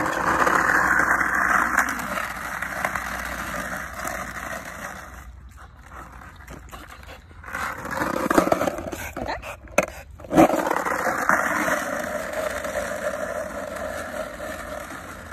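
Skateboard wheels rolling on asphalt as a small dog pushes and rides the board, a rough rolling noise that swells and fades, with a sharp knock about ten seconds in.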